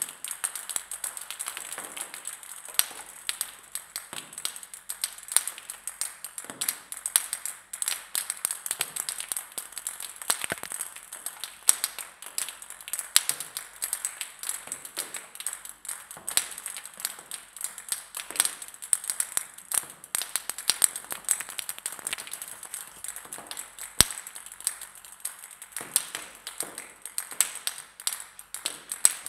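Plastic table-tennis balls bouncing on a hard floor: a continuous, irregular patter of light clicks, several a second, over a faint steady high hiss, with one sharper click late on.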